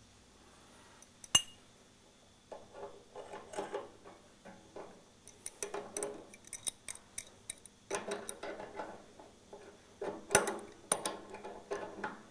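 Metal tools clinking and scraping on a chrome radiator valve: an adjustable spanner being set and worked on the valve's compression nut, then grips clamped on, in irregular clusters of sharp clicks. A single sharp metallic click about a second and a half in is the loudest.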